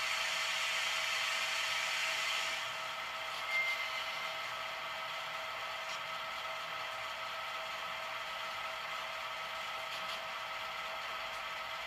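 SoundTraxx Tsunami2 sound decoders in HO-scale diesel locomotives playing a steady diesel idle while the air compressor charges the brake trainline, from small on-board speakers. A louder air hiss runs for the first two and a half seconds, and a short high tone sounds about three and a half seconds in.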